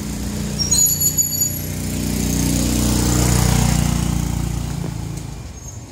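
A motor vehicle's engine passes by, getting louder to a peak about three and a half seconds in and then fading away. A few short, high-pitched ringing sounds come about a second in.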